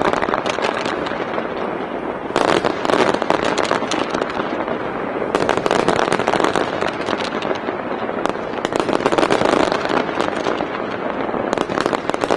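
Display fireworks going off in dense waves of rapid crackling cracks, a new wave starting about every three seconds over a steady rumble of bursts.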